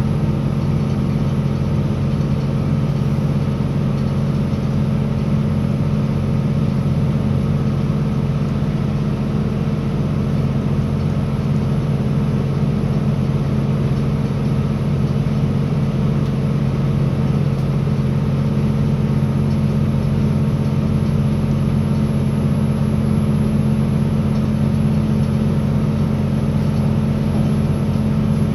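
Northern Ireland Railways CAF Class 3000 diesel multiple unit running at speed, heard inside the passenger saloon: a steady low hum from its underfloor diesel engine over a constant rolling rumble, holding even throughout.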